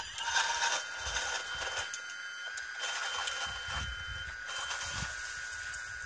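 Hydraulic pump of a 1:14 scale RC hydraulic excavator whining steadily as it drives the boom and bucket, with a higher tone that comes and goes as the controls are worked. A few soft scrapes come as the bucket digs into dead leaves.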